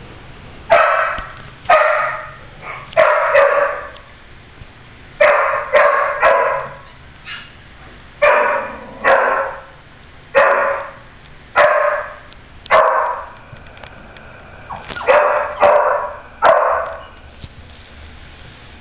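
Blue-nose pit bull puppy barking: about fifteen short barks in quick runs of two or three, with a pause of a second or two about two-thirds through.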